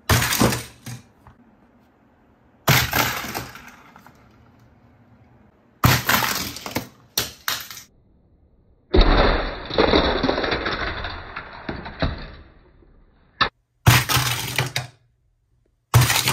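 Toy packaging being handled and opened: a series of short crackling, rustling bursts, with one longer stretch of about three and a half seconds in the middle and a single sharp click shortly after it.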